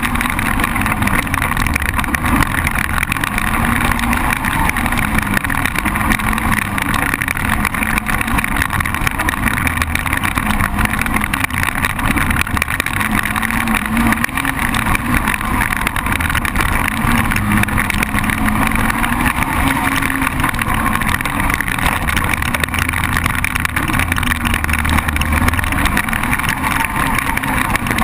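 ATV engine running while riding along a trail, its pitch rising and falling every few seconds as the throttle is worked.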